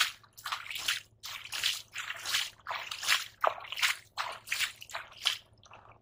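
Shallow water splashing and sloshing in short, repeated splashes, about two a second, as hands scoop river water into a plastic sack and swirl it to rinse it.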